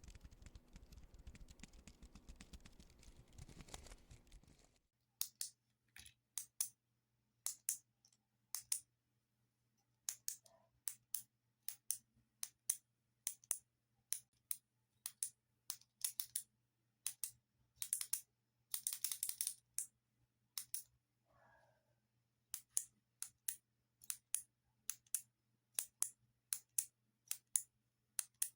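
Buttons clicked for ASMR: sharp, crisp clicks in irregular pairs and quick clusters with short pauses between. The first five seconds or so are instead a dense, continuous rattling clatter.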